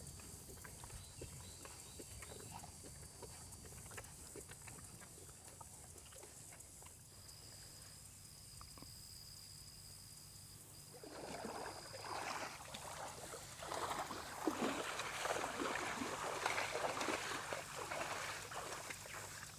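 Cattle close at hand: faint scattered clicks at first, then from about halfway a louder run of rough, uneven noises.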